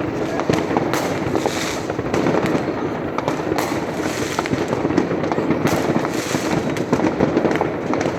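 Fireworks going off in a dense, continuous barrage: many bangs and crackles overlapping without a break.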